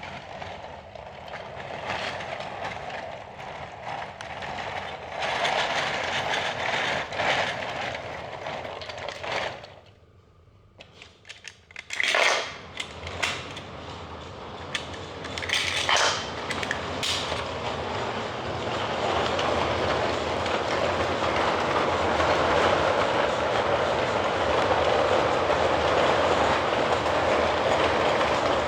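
3D-printed plastic toy train rolling along plastic track, a steady rattle with small clicks. It stops for about a second about ten seconds in, then gives several sharp clacks before running on steadily and growing a little louder.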